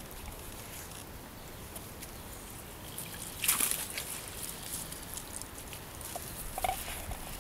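A dog splashing in shallow pond water: one sharper splash about halfway through, then lighter sloshing and drips near the end.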